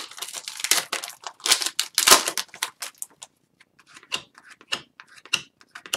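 A trading card pack's wrapper crinkling and tearing as it is ripped open. After about three seconds the cards are fanned and flicked through, making scattered short snaps.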